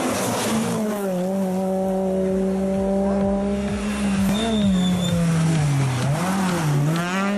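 Rally car engine running hard at high revs on a stage. It holds a steady note for a few seconds, then drops and picks up again several times near the end as the driver lifts and gets back on the throttle, with some tyre noise underneath.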